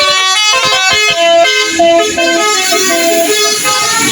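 Bus telolet horn: an Indonesian bus's multi-tone musical air horn playing a quick tune of short stepped notes, several pitches sounding together.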